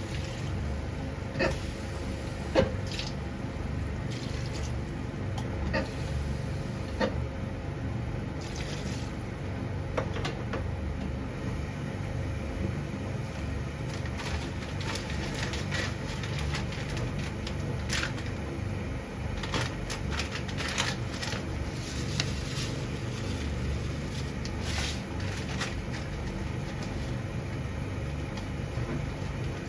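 Kitchen cooking sounds: a steady low rumble, like a pot of liquid on the boil, with scattered light clicks and taps of utensils throughout.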